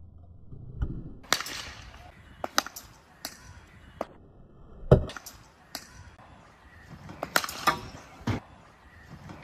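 A series of sharp knocks and clicks from a cricket bat striking a hard plastic ball, with lighter clicks in between. The loudest knock comes about five seconds in.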